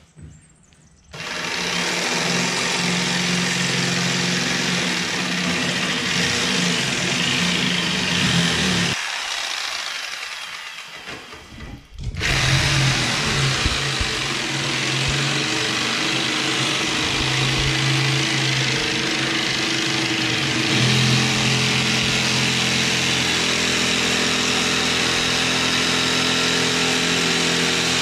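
Corded electric jigsaw cutting through a plywood sheet, running steadily. It starts about a second in, dies away for a few seconds near the middle, then starts again and keeps cutting.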